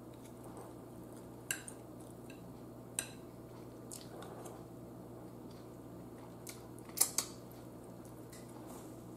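Metal fork clinking against a bowl of food a few times, the loudest a quick double clink near the end, with faint chewing of a mouthful of food in between over a low steady hum.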